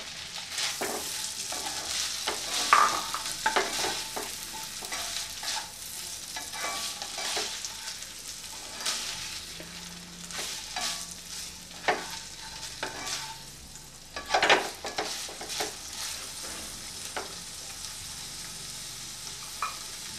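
Sliced boiled chicken sizzling in melted butter in a non-stick frying pan. A plastic spatula scrapes and knocks against the pan now and then as the chicken is stirred.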